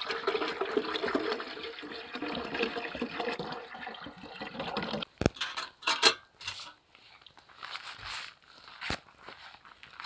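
Water glugging out of a plastic gallon jug into a metal stove water tank for about five seconds. It stops suddenly and is followed by a few sharp knocks, with a couple of fainter ones near the end.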